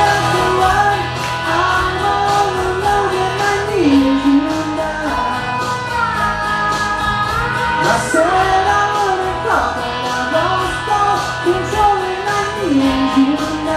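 Karaoke: a singer's amplified voice carrying a melody with held notes over a recorded backing track.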